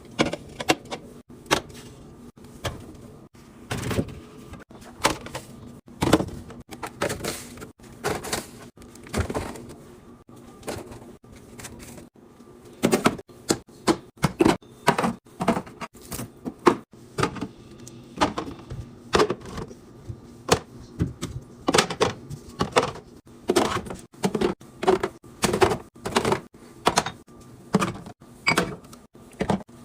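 Repeated clicks, knocks and clatter of containers and groceries being handled, set down and closed while a refrigerator is stocked, coming faster and louder about halfway through.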